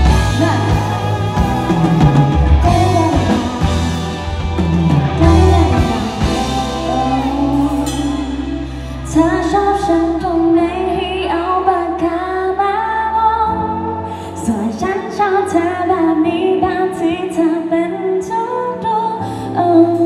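Live pop band with a woman singing lead into a microphone over drums, electric guitar, bass and keyboard, heard through the stage PA. The backing thins out about eight seconds in, leaving a lighter accompaniment under the voice.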